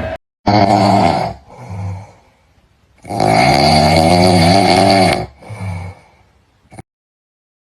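A drawn-out, wavering groaning wail in four separate bursts, the longest about two seconds, cut off abruptly near the end.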